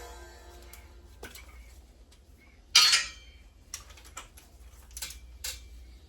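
Metal clinks and clanks of hand tools and transmission parts being handled. There is one louder metallic clank with a short ring about three seconds in, and a handful of lighter clicks after it.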